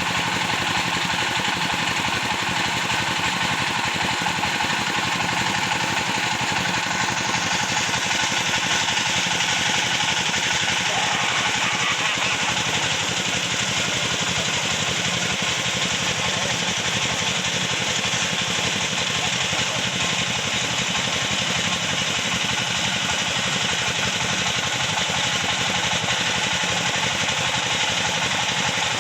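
Sawmill machinery running steadily: a dense, continuous engine-and-saw noise with no break, its high end shifting slightly about seven seconds in.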